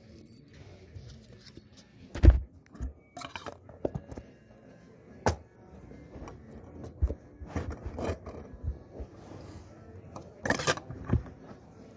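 Irregular handling sounds: knocks, scrapes and light metallic clinks, with the sharpest knocks about two seconds in and again near the end.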